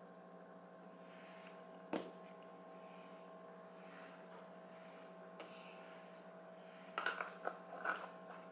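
Faint steady electrical hum, with a sharp click about two seconds in and a few light knocks near the end as plastic nail-powder jars are set down on a mat.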